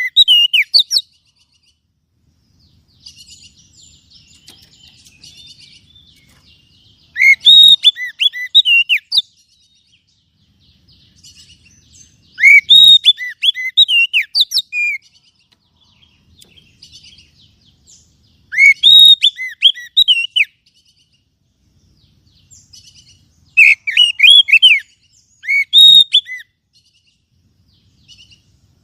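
Oriental magpie-robin (kacer) singing loud bouts of sharp, whistled, up-and-down notes about two seconds long, four times about every five or six seconds, with softer twittering between bouts. The song is a pancingan, a lure recording played to stir silent captive kacer into singing.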